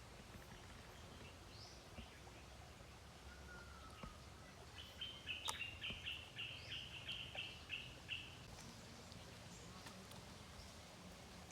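Wild birds calling over a faint outdoor background. About five seconds in, one bird gives a quick run of a dozen or so short, high repeated notes lasting about three seconds, and a single sharp click falls in the middle of it.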